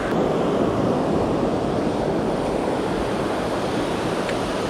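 Steady rush of river water pouring over a dam and its falls, a constant full roar with no change.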